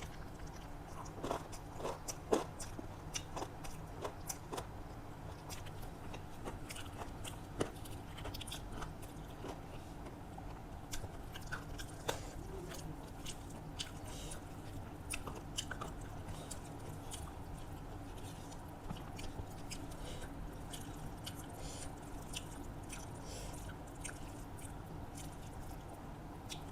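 A person chewing and biting through a meal of rice, omelette and fried vegetables, with many small crunches and wet mouth clicks over a steady low hum.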